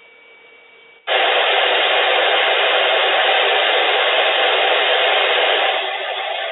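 Weather radio receiver hissing with loud static that starts suddenly about a second in, after a faint steady hum of dead air, and eases off a little near the end: the sign of the NOAA Weather Radio station's signal breaking down.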